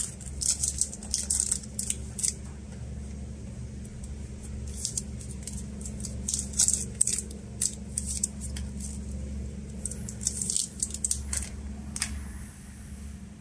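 Packaging being handled during an unboxing: irregular bursts of rustling, clicking and scraping, in clusters with short pauses, over a steady low hum.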